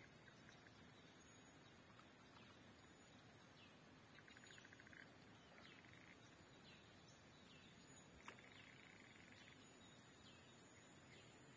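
Faint birdsong: several short chirps and quick rapid-fire trills, over a steady high-pitched whine, with one small click about 8 seconds in.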